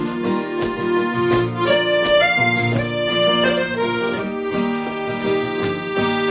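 Instrumental break in a country-folk song: an accordion plays the melody in held notes over a strummed acoustic guitar.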